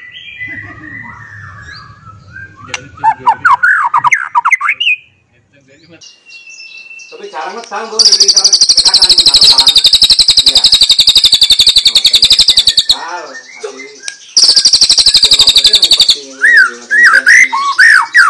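White-rumped shama (murai batu) singing: sweeping whistled phrases, then a long, loud, very fast high-pitched trill starting about eight seconds in, and a second shorter one after a short pause. Whistled phrases return near the end.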